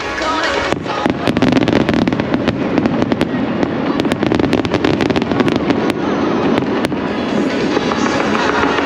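Fireworks crackling: a dense run of sharp pops and crackles from about a second in, thinning out near the end, over music.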